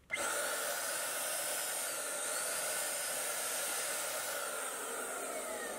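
HomeRight Super Finish Max electric HVLP paint sprayer running and spraying paint: its turbine blows a steady, airy hiss like a hair dryer. The sound starts abruptly, and its pitch begins to fall near the end.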